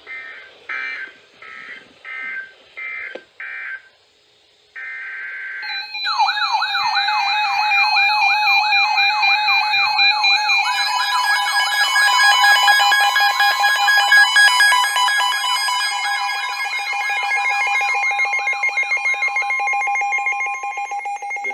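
Emergency Alert System weather-radio alert: a string of short digital data bursts, then from about six seconds a loud warbling siren-like alert tone layered with steady attention tones. These include a long steady alarm tone of about ten seconds, the signal that a warning message is about to be read.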